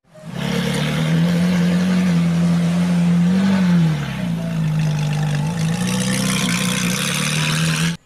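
Sports car engine running at a steady, even note, rising briefly about three and a half seconds in, then settling a little lower.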